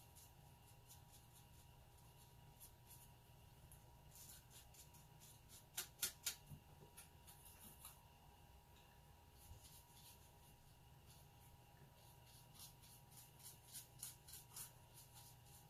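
Quiet watercolour brushwork: faint scratchy strokes of a round brush on watercolour paper, with scattered light ticks from the brush at the plastic palette. A quick run of about four sharper ticks comes about six seconds in, and more ticks follow near the end.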